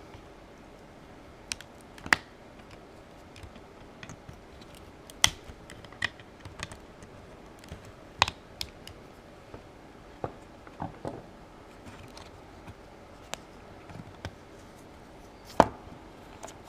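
Irregular sharp clicks and knocks of the two 3.7 V lithium cells being prised out of a cordless palm sander's battery holder, with the loudest snap near the end.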